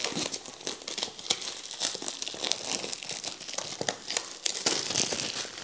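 Clear plastic wrapping on a cardboard smartphone box crinkling and tearing as fingers pick at it and peel it away, a dense run of small crackles.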